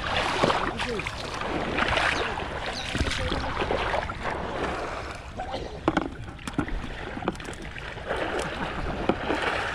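Water sloshing and splashing in shallow muddy water, with irregular small knocks.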